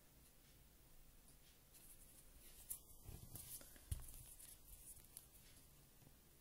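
Soft handling noises from a small gel-polish bottle being turned and handled in the fingers, with a sharp click nearly three seconds in and a louder knock about four seconds in. Otherwise near silence.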